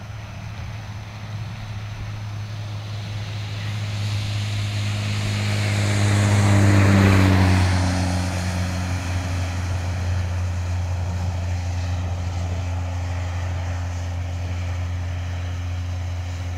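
Heavy truck passing on a highway: its engine drone and tyre noise build up, peak about seven seconds in as it goes by, then fade slowly.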